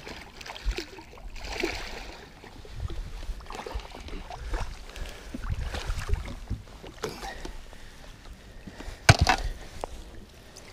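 A hooked smallmouth bass thrashing and splashing at the water's surface beside a boat, with scattered knocks and one sharp loud knock about nine seconds in.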